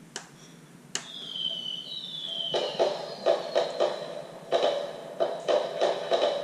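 Electronic toy princess castle playing a fireworks sound effect through its small speaker: a button click, falling whistles, then a run of short bursts.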